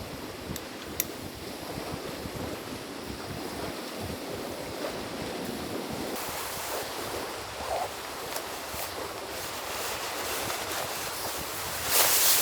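Strong wind with lake waves washing against the shore, the wind rumbling on the microphone. A short louder rush of noise comes near the end.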